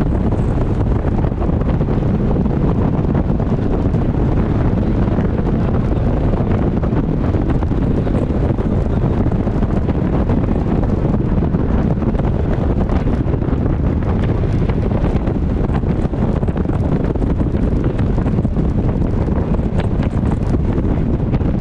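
Strong wind buffeting the microphone while travelling at speed, a loud, steady low rumble with no clear engine note.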